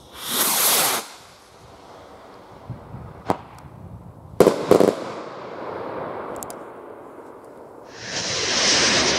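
A salute rocket launching with a second-long rushing whoosh, then a sharp crack and, about a second later, two loud bangs half a second apart that echo away as the salutes burst. Near the end a second salute rocket lifts off with another rushing whoosh.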